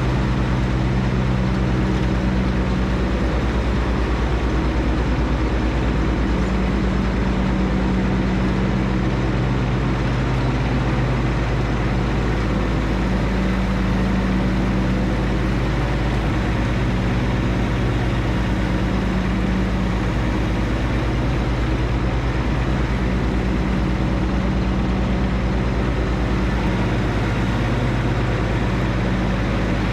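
Compact diesel tractor engine running steadily at a constant level, a John Deere 1025R's three-cylinder diesel, with a low drone whose upper overtones swell and fade every few seconds.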